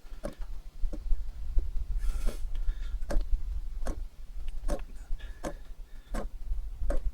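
Gear oil being squeezed from a plastic bottle into a gearbox filler: a short click or glug from the bottle repeats evenly, about once every three-quarters of a second, over a steady low rumble.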